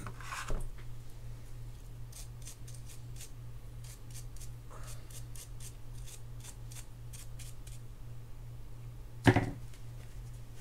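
A small brush scrubbing a fishing reel's handle in short, quick strokes, about three a second, for several seconds, then one loud knock near the end.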